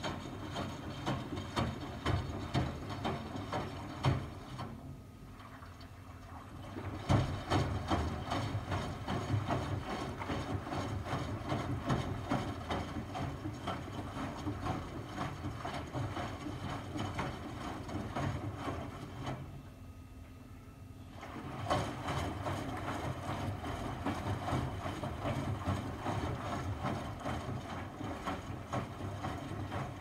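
Miele front-loading washing machine in its wash phase: the drum turns with laundry and water sloshing and knocking inside, stopping twice for about two seconds before turning again.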